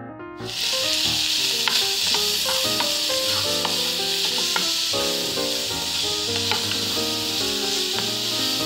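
Ground beef sizzling loudly in a frying pan as it is stirred with a wooden spoon, the sizzle starting about half a second in with small scrapes of the spoon. Piano music plays underneath.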